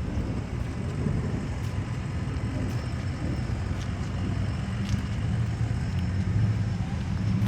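Car engine running with a steady low rumble that grows slightly louder near the end.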